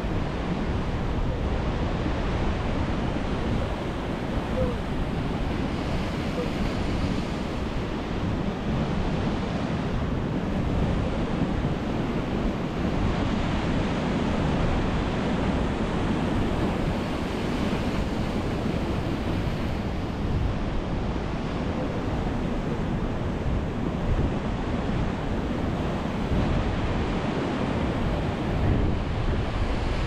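Sea surf breaking against concrete tetrapods and washing over a pebble beach: a steady wash of waves that gently swells and eases, with wind rumbling on the microphone.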